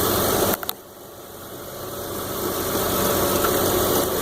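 The 2006 Honda Odyssey's V6 engine idling steadily. About half a second in there are two sharp clicks. The sound then drops away abruptly and swells back to its steady level over the next few seconds.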